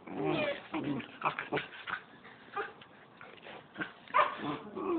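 Siberian husky puppies play-fighting, giving short yips and whimpers in quick clusters near the start and again near the end, quieter in between.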